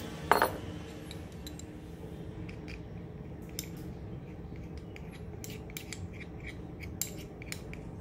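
Kitchen utensils and containers being handled: one sharp, ringing clink about a third of a second in, then scattered light clicks and taps, over a steady low hum.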